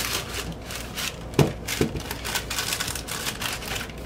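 Clear plastic record sleeve crinkling and rustling as a vinyl LP jacket is handled inside it, with two short soft thuds about a second and a half in.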